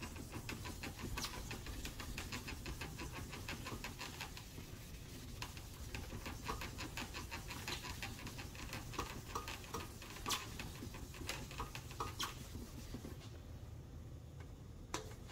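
Hand wet-sanding with 1500-grit sandpaper on a freshly painted Harley-Davidson fuel tank: quick back-and-forth scratchy strokes of paper on wet paint, cutting the orange peel down to a dull finish. The strokes are fast and even for the first few seconds, then sparser and more irregular.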